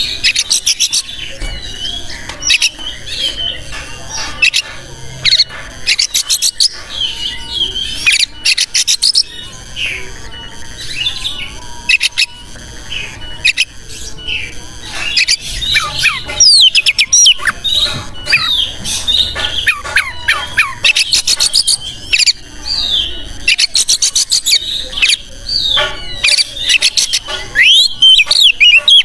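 Oriental magpie-robin (kacer) in full, non-stop song: loud, varied whistles that slide up and down, broken again and again by fast rattling runs of sharp notes.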